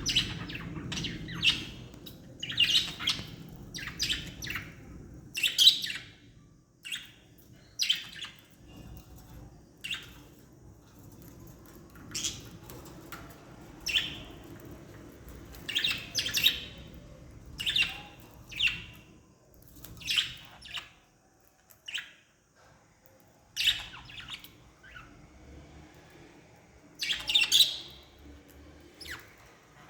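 Budgerigars chirping in short calls that come irregularly through the clip, singly or in quick clusters, loudest about six seconds in and again near the end.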